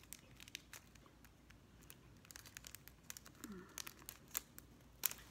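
Faint, scattered clicks and crinkles from fingers handling a small clear plastic storage compartment and tiny plastic beads. A sharper click comes about five seconds in.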